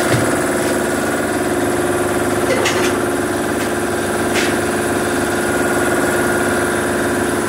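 A motor running steadily with a droning hum, with two short light knocks about two and a half and four and a half seconds in.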